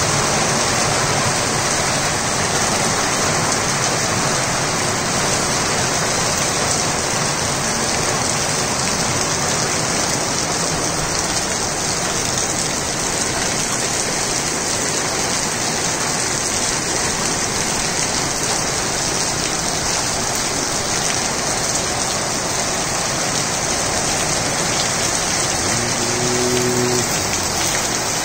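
Steady rain falling on a concrete rooftop terrace and its potted plants, an even hiss. Near the end there is a brief low hum.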